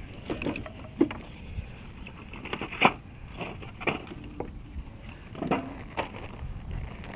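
Split firewood and dry kindling being set and dropped onto the grate of a steel fire ring: a series of irregular wooden knocks and clatters, the loudest a little under three seconds in, with rustling and crumpling of kindling and paper between them.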